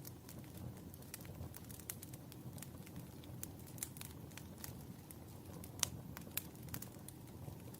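Wood fire in a fireplace burning, with irregular sharp crackles and pops over a low steady rumble of the flames; one louder pop near the end.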